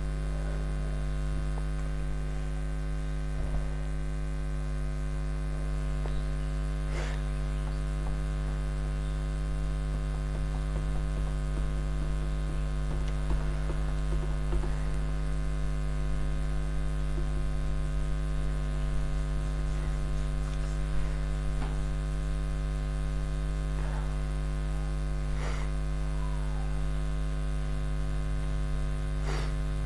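Steady electrical mains hum with a stack of overtones. A few faint clicks and scrapes of a marker and duster on a whiteboard come through it.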